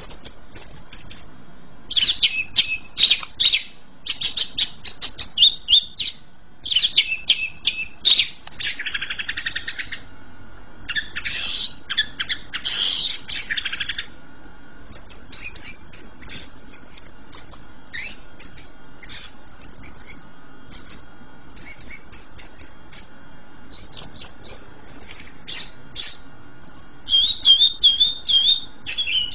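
Caged cucak ijo (greater green leafbird) singing hard and nonstop, a varied stream of quick high whistled notes and trills. Two longer buzzy rattling passages come about a third of the way in, and a run of repeated wavering notes comes near the end.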